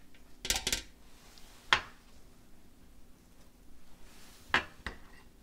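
Kitchen utensils knocking against dishes and cookware: a quick cluster of taps, one sharp clink, then two more taps near the end.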